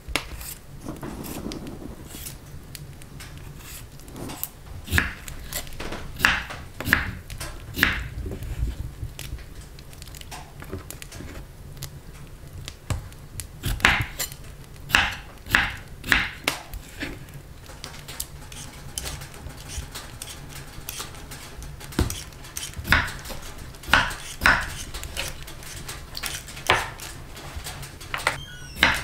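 Kitchen prep sounds: sharp knocks and clinks of utensils against dishes and a cutting board, coming in irregular runs of several strokes about half a second apart.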